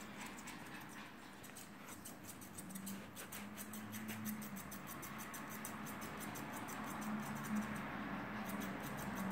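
Grooming scissors snipping through a Yorkshire terrier's coat: a quick run of light metallic clicks, several a second, over a faint low hum.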